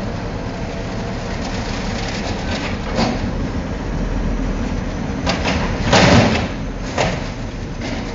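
Automated side-loader garbage truck running steadily while its hydraulic arm lifts a trash cart and tips it into the hopper. A few sharp bangs and clatter as the cart is emptied and knocks against the arm, the loudest about six seconds in.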